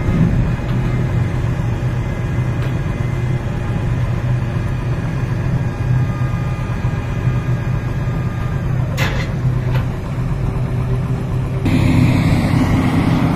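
Heavy diesel engine of a tracked rotary piling rig running with a steady low drone, with one sharp knock about nine seconds in. Near the end the sound turns to a louder, noisier construction-site din.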